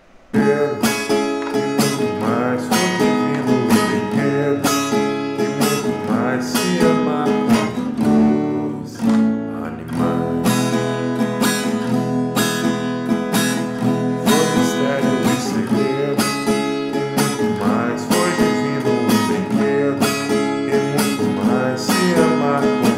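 Acoustic guitar strummed in a steady, repeating rhythm, playing full chords that include E major.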